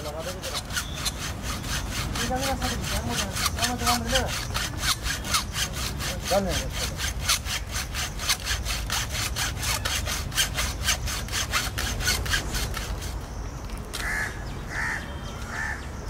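A hacksaw cutting through armoured power cable in quick, even strokes, several a second. The sawing stops about three seconds before the end.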